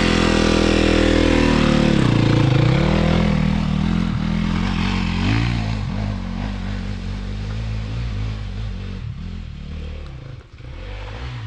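Dirt bike engine running with changing revs: the pitch drops about two seconds in and picks back up, then the engine grows quieter over the second half.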